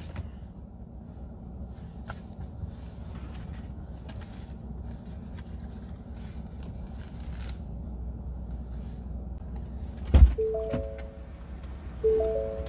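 Low steady rumble inside a car cabin, with faint rustling. About ten seconds in a single heavy thump, then a three-note descending electronic car chime sounds twice.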